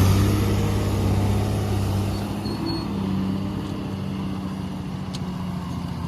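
Heavy diesel engine running at low revs, easing down over the first two seconds and settling into a steady idle.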